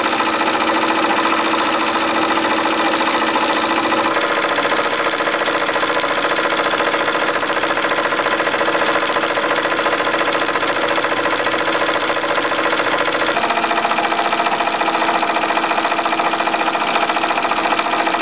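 Wilesco D28 toy steam engine running fast and steadily on live steam, a rapid even clatter with steam hiss. Its note shifts slightly a few seconds in and again later.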